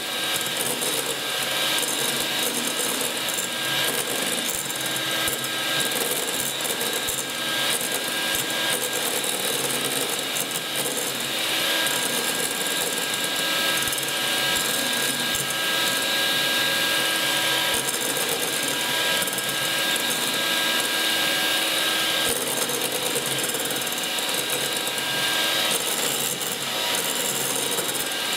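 1980s Gorenje MGA M202 electric hand mixer running at a steady speed, its motor giving a steady whine as the twin beaters whip cream in a glass bowl.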